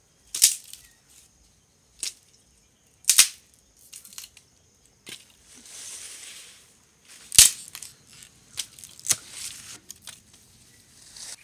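A green wooden stick being snapped and split by hand: a string of sharp cracks, the loudest about seven seconds in, with a brief tearing rustle of splitting fibres around six seconds in.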